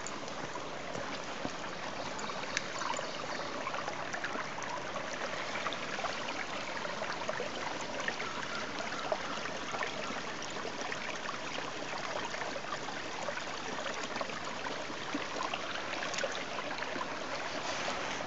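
Shallow stream running over stones: a steady babble of water.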